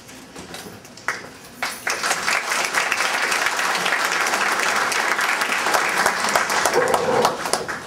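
Audience applauding: a few scattered claps about a second in, swelling into steady applause that fades away near the end.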